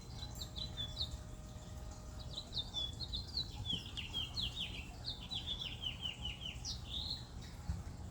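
Small songbirds singing: a few short high chirps, then from about two and a half seconds in a quick run of downward-sliding notes that ends in a rougher, burry note near the end. A steady low rumble runs underneath.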